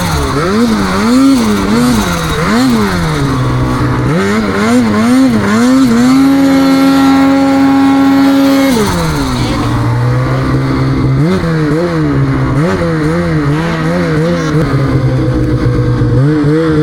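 Snowmobile engine revving up and down in quick swings under the throttle. About six seconds in it holds a steady high pitch for nearly three seconds, then drops low before it starts rising and falling again.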